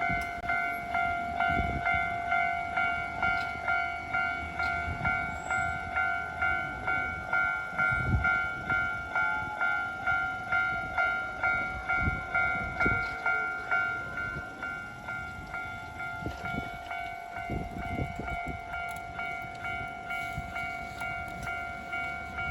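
Japanese railroad crossing's electronic warning bell ringing at about two strikes a second, the beat growing softer in the second half, with a train rumbling through.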